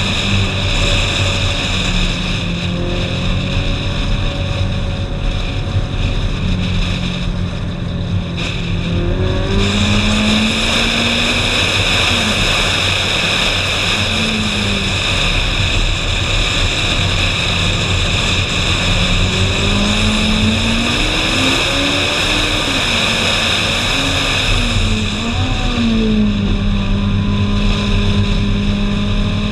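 Ferrari 458 Spider's naturally aspirated 4.5-litre V8 engine pulling up a hill road, its revs rising and falling several times: a dip and sharp climb about a third of the way in, and a quick run of rises and falls later on. Steady wind rushes over the car-mounted microphone throughout.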